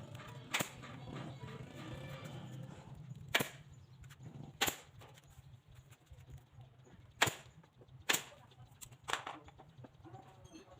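Nails being driven into timber: six sharp, separate cracks at uneven intervals of about one to three seconds, over a faint low hum.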